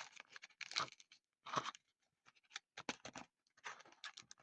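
Faint, irregular clicks, taps and rustles of small fidget toys being handled and set down by hand.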